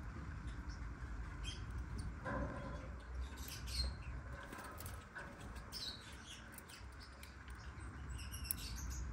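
Abyssinian lovebirds (black-winged lovebirds) giving short, high-pitched chirps and squeaks scattered throughout, with a few longer calls about two and five seconds in, over a steady low hum.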